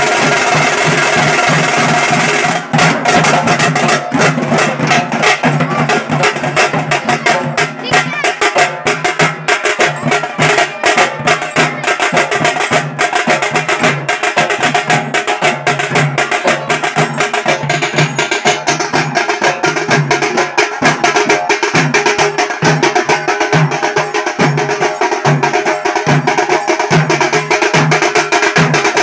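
A group of dollu, the large Karnataka barrel drums, beaten together with sticks in a fast, driving dollu kunitha rhythm. The strokes become sharper and more distinct about two and a half seconds in and keep a steady pulse after that.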